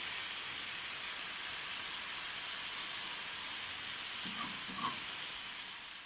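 Chicken pieces frying in oil in a pan: a steady, even sizzle that fades away near the end.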